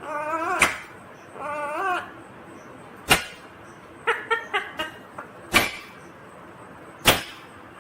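Indian ringneck parakeet vocalising: short warbling, talk-like chatter phrases, broken by four sharp, very brief loud squawks.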